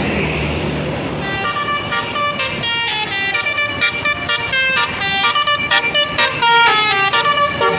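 A bus's Basuri telolet musical horn playing a fast tune of short stepped notes, starting about a second in, over the noise of the passing bus's engine.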